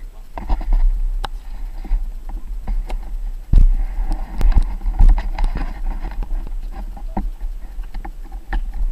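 Handling noise of an action camera being moved and repositioned: irregular knocks and scrapes on its housing over a low rumble, the loudest knock about three and a half seconds in.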